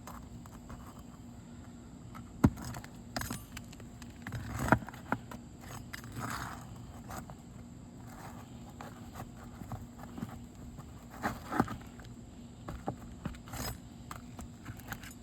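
Metal roof snake working under asphalt shingles to pull roofing nails: scraping, with scattered sharp clicks and knocks, the loudest about two and a half seconds in and again near five seconds.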